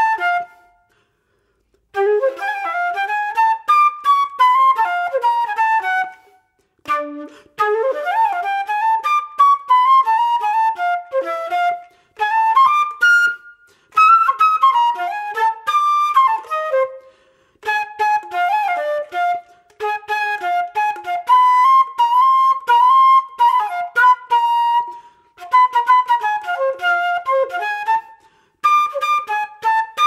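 Background music: a solo instrumental melody played in short phrases, with brief silences between them.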